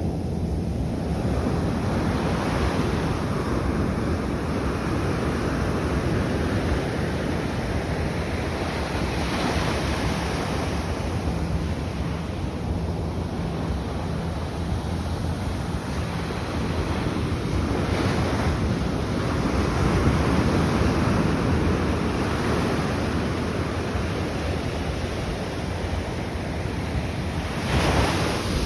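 Atlantic Ocean surf: waves washing in continuously, swelling louder every several seconds as they break, with wind buffeting the microphone.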